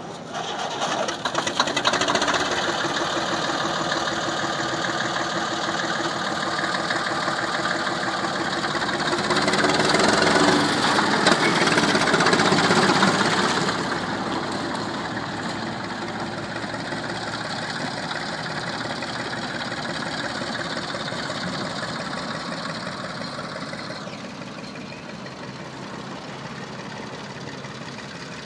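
1968 Deutz A-55 tractor's air-cooled diesel engine running with a steady knocking clatter. It is louder for a few seconds around the middle and quieter in the later part, as the tractor is driven off.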